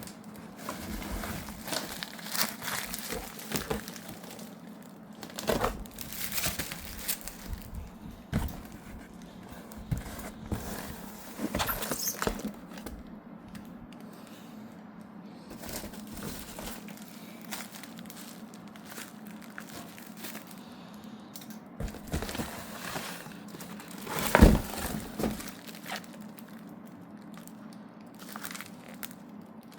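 Ceiling-fan packaging being unwrapped and handled: plastic and packing material crinkling and tearing in irregular bursts, with scattered knocks and one louder one late on, over a faint steady hum.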